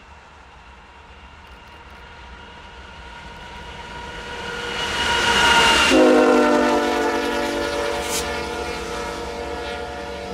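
A diesel locomotive's multi-tone air horn sounding steadily as the train approaches, growing louder. About six seconds in, as the locomotive passes, the horn drops in pitch and then fades, over the rumble of the passing train.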